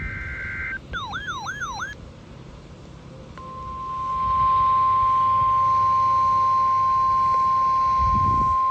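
NOAA Weather Radio alert tones over faint radio hiss. It opens with the tail of a SAME data burst, a buzzy two-pitch tone that cuts off under a second in, followed by a warbling tone that sweeps down and back up three times. About three and a half seconds in, the steady 1050 Hz weather radio warning alarm tone fades up and holds, with a low thump near the end.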